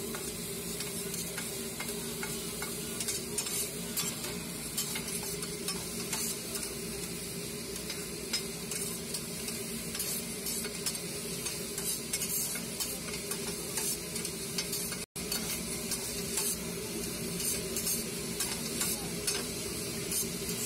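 Egg fried rice with pork sizzling on a large flat iron griddle while two metal spatulas scrape, chop and toss it, with frequent clicks and taps of metal on the plate. The sound cuts out for an instant about fifteen seconds in.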